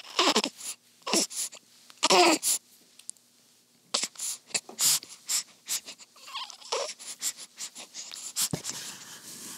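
Newborn baby's short squeaky grunts and whimpers, about four of them, each falling in pitch, the loudest about two seconds in. Between them come wet mouth clicks and lip-smacking as she sucks at her hand and stirs in her sleep.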